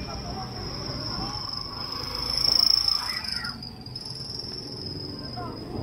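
Crickets trilling in a steady high-pitched whine, swelling louder for about a second a little before the middle, then easing back.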